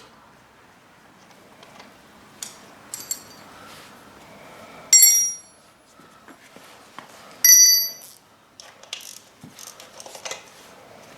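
Metal tools clinking against metal, with two sharp ringing clinks, the first about five seconds in and the second about two and a half seconds later, and small clicks and knocks between them.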